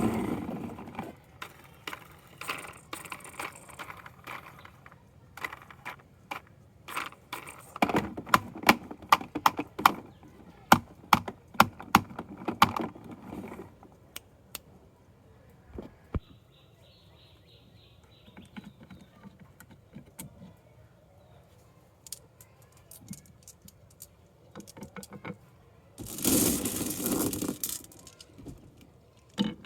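Marbles rolling and clacking down a wooden HABA marble run: many sharp clicks, thickest in the middle stretch. Later comes a faint steady whine, and near the end a loud rattling rush lasting about two seconds.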